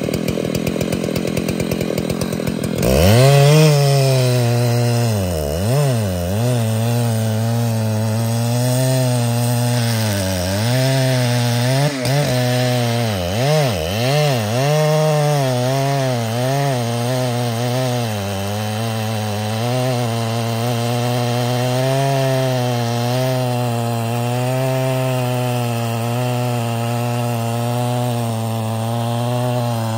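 Large Husqvarna two-stroke chainsaw idling, then opened up to full throttle about three seconds in and cutting trembesi wood. The engine note sags sharply several times as the chain bogs down in the cut, then holds a steady, slightly wavering pitch under load.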